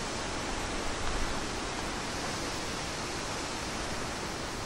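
Wind blowing across the microphone: a steady rushing noise.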